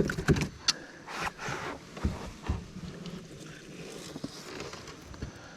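Scattered knocks, low thumps and scraping rustles of gear and hands moving about in a canoe, with a sharp click under a second in.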